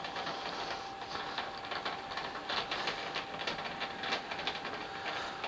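Hand screwdriver turning a screw to fasten a graphics card's bracket into a PC case's expansion slot: a rapid, uneven run of small metallic clicks and scrapes.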